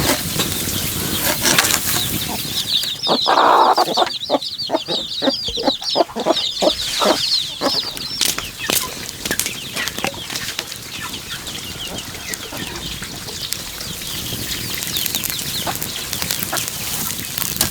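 Chickens clucking in a quick run of short calls, with rapid high chirping over them, about three to eight seconds in.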